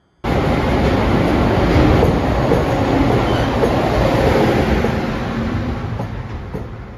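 Container freight train hauled by a JR Freight EF210-300 electric locomotive rolling past along the platform, with the wheels and container wagons running over the rails. It starts abruptly, is loudest a couple of seconds in, then gradually fades.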